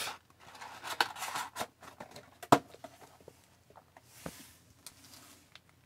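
Sealed trading card packs and their cardboard box being handled and set down on a table: soft rustling and scattered light taps, with one sharper tap about two and a half seconds in.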